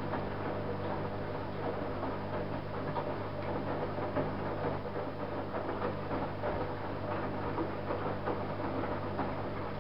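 Privileg Single 42614 washing machine's drum turning in a wash tumble: a steady motor hum with the laundry tumbling inside, stopping just after the end.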